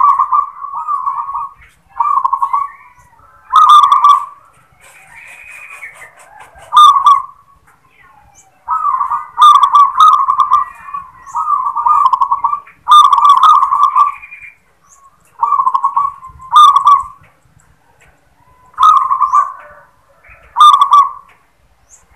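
Local zebra dove (perkutut) singing its 'klar ketek kuk' song: a run of short rolling coo phrases, one every second or two. Many phrases open with a sharp crack.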